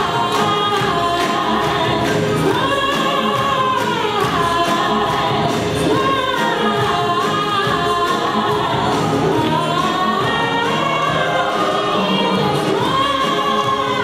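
Music: a song with singing over a steady beat.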